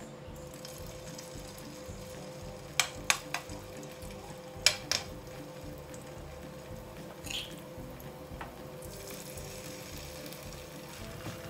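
A metal spoon clinking sharply, three times and then twice, as spoonfuls of grated potato mixture are scooped and dropped into hot oil in a nonstick frying pan. Near the end the oil starts to sizzle faintly as the potato patties begin to fry.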